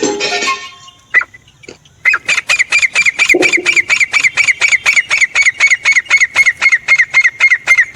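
Francolin (teetar) calling: after a short rough burst at the start, a fast, even string of short sharp notes begins about two seconds in, about six a second.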